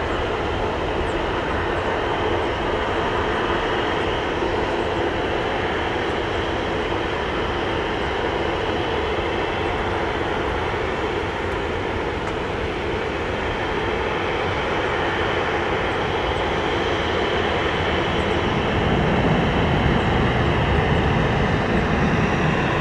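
Airbus A320's CFM56 turbofan engines at takeoff thrust as the jet takes off and climbs away: a steady jet roar, with a deeper rumble growing stronger near the end.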